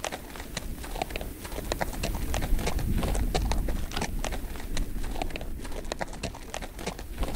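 Hooves of several horses walking, an irregular, overlapping clip-clop over a low rumble.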